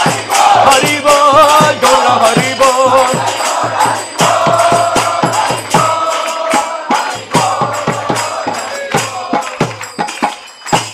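Devotional kirtan music: a mridanga drum played in quick repeated strokes under group chanting, with a steady metallic jingle over it. The music grows quieter near the end.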